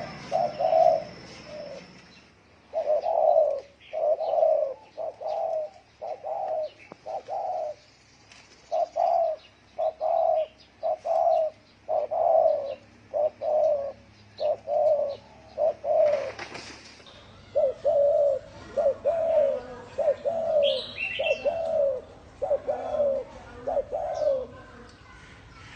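Spotted dove cooing, a long run of short low coos in repeated phrases with a short break about two-thirds of the way through. A brief higher chirp from another bird sounds near the end.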